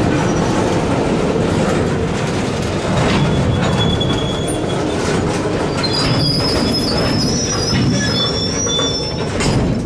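Freight cars rolling slowly on the rails with a steady rumble and scattered clanks from wheels and couplers. From about six seconds in, the steel wheels squeal in several high, held tones for about three seconds.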